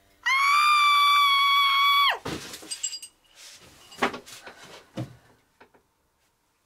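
A loud, steady electronic tone held for about two seconds, dropping away in pitch at its end, followed by a few light clinks and knocks of small metal parts: a cast-iron part of the hand drill has just snapped.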